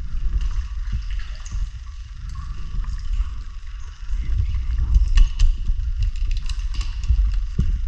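Water sloshing and gurgling around a diver at the surface, with a low muffled rumble and scattered clicks and knocks of dive gear handled right at the microphone; the knocks come thicker about halfway through.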